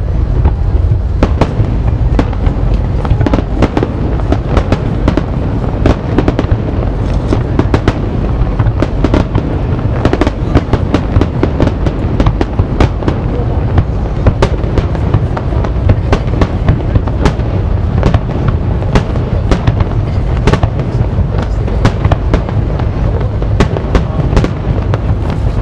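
Aerial fireworks shells bursting in rapid, uneven succession: many sharp bangs and crackles over a continuous low rumble.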